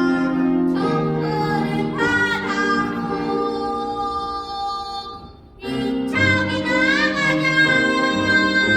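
A child singing long held notes in a performance, with a short break in the sound about five and a half seconds in before the singing resumes.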